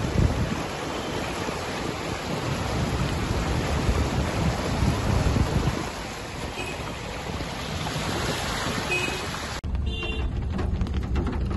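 Steady rushing noise of heavy rain and floodwater flowing along a street. Near the end it cuts abruptly to a deeper rumble of vehicles driving through a waterlogged road in the downpour.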